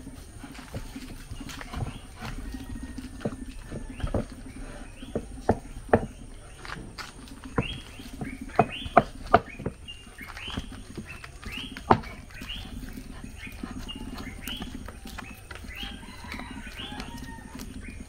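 Soft, wet plantain puff puff dough being mixed and kneaded by hand in a glass bowl: irregular squelches and sharp slaps, coming thickest in the middle.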